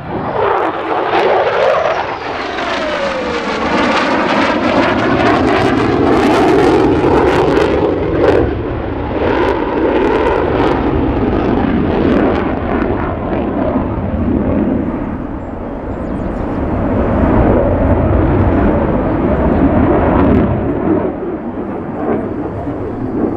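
Jet noise from a USAF F-35A Lightning II's single Pratt & Whitney F135 turbofan during a demonstration flight: it swells in sharply at the start with a sweeping whoosh, then holds a loud, steady roar with crackling through the middle, easing a little near the end.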